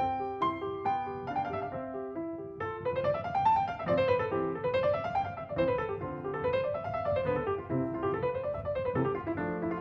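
Background piano music: single notes at first, then from about three seconds in, repeated runs that rise and fall about every second and a half.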